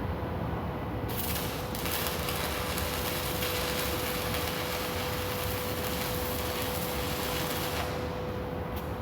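Electric arc welding: a steady crackling hiss of the arc starts about a second in and stops near the end, over a constant low hum.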